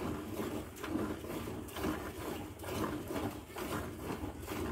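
Milk squirting into a plastic bucket as a cow is milked by hand, in a steady rhythm of about two squirts a second.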